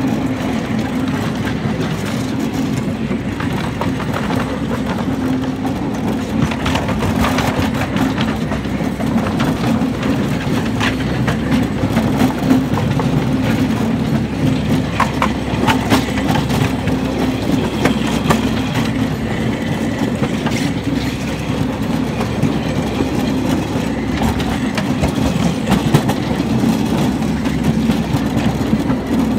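Quarter-scale ride-on train running along its track: a steady drone from the train with scattered clicks and rattles from the wheels and cars on the rails.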